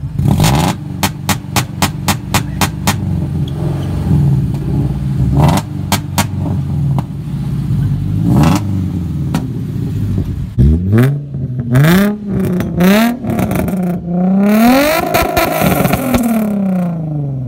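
The flat-four engine of a Toyota 86-type sports coupe running, with a quick series of sharp pops in the first few seconds. From about two-thirds of the way in it is revved several times, the pitch climbing and falling with each blip.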